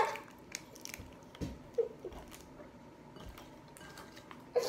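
Faint, scattered small clicks and soft knocks of objects being handled, with one low thump about a second and a half in.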